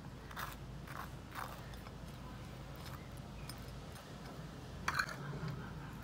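Metal spoon scraping as it spreads milk cream (malai) over a slice of crisp toast on a plate: a few short scratchy strokes in the first second and a half, and a louder click about five seconds in.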